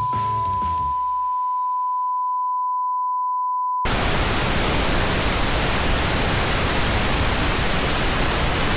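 A steady 1 kHz test tone, the beep that goes with TV colour bars, holds for nearly four seconds and cuts off abruptly. Loud, even TV static hiss takes over for the rest.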